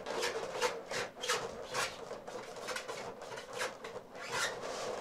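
A pen writing on an inflated latex balloon: a run of short rubbing strokes, about two to three a second.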